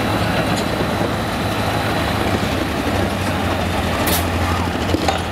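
Diesel pickup truck engine idling with a steady low rumble after a pull. A brief hiss comes about four seconds in.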